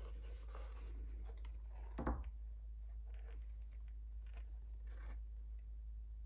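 Handling noise from leather dress shoes being turned over in the hands: faint rustles and light taps, with one louder knock about two seconds in, over a low steady hum.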